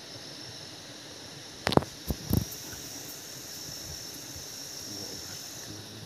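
A cluster of sharp knocks and scrapes about two seconds in as a freshly caught fish is handled and unhooked, over a steady outdoor hiss with a thin high whine.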